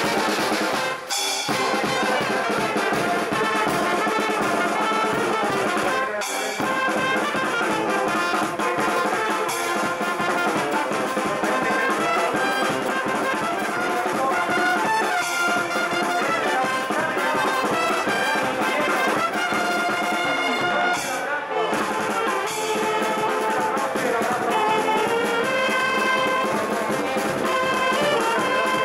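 Charanga, a Spanish street brass band, playing a tune, led by trumpets and trombones.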